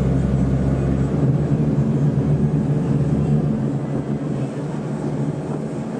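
Boat engine running with a steady low drone. About a second in, the deepest rumble drops away and the hum settles a little higher; it eases slightly near the end.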